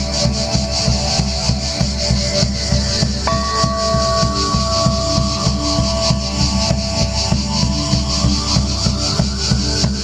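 Instrumental music with a steady drum beat under long held melodic notes; a higher held note comes in about three seconds in.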